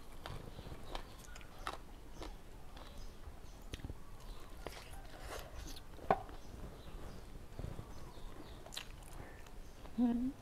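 Close-miked chewing of a mouthful of grilled chicken and green papaya salad, with many small wet clicks of the mouth. There is a brief voiced sound from the eater about six seconds in and another near the end.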